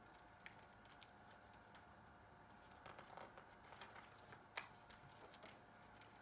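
Faint rustling and soft clicks of a picture book's paper pages being opened and turned by hand, with a sharper tick a little past halfway, over quiet room tone.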